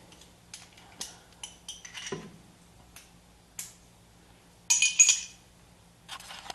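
Metal hand tools (ratchet, socket and extension) clinking as they are handled and set down. There are scattered light clicks and one louder ringing clink about five seconds in.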